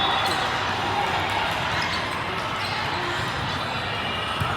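Busy indoor volleyball gym during play: steady crowd chatter and echoing hall noise with scattered ball contacts, and a sharper knock just before the end.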